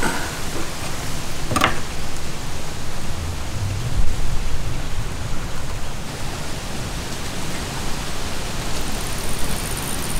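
A steady, even hiss with a low rumble underneath, and a single short click about one and a half seconds in.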